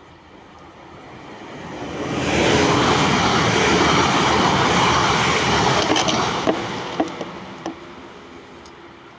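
A passing train: its rumble swells to a loud peak and then fades away, with a few sharp clicks near the end.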